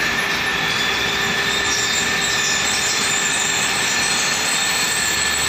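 Steady factory-floor machinery noise: a constant loud hiss with a steady high-pitched whine running through it.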